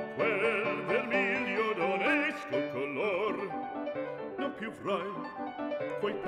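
Background opera music: a classical singer with a strong vibrato over an instrumental accompaniment.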